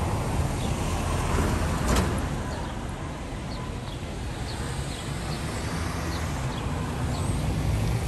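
Outdoor street ambience: a steady low rumble under a general hiss, with faint short high chirps scattered through and a brief knock about two seconds in.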